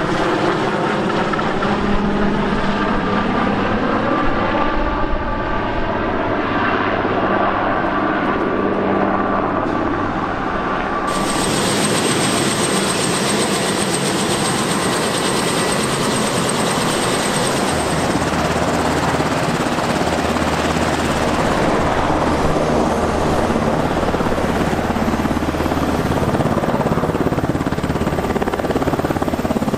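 A Super Puma-type helicopter flying past, its turbine and rotor sound sliding down in pitch as it goes by. About a third of the way in, this changes abruptly to a Black Hawk-type helicopter with rotors turning on the ground: a steady high turbine whine over rotor noise, with the low rotor sound growing heavier as it lifts into a hover near the end.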